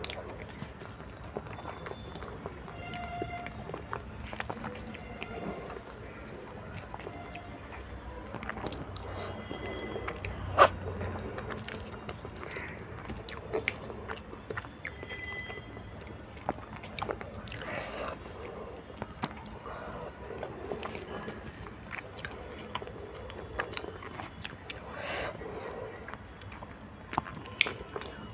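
Close-miked chewing of a full mouthful of soft instant noodles, with many small wet mouth clicks and one sharper click about ten seconds in.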